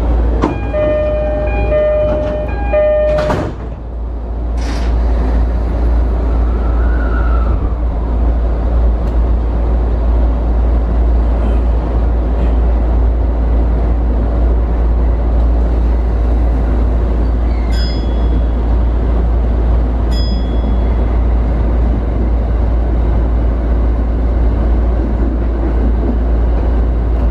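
E231-series electric commuter train running, heard from the cab as a steady low rumble. It opens with a short run of pitched beeps, followed by two sharp knocks a few seconds in.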